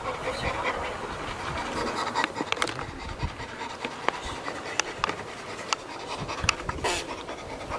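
Chimpanzee panting in excitement at close range, breathy pants with scattered clicks and rustles of handling against the microphone.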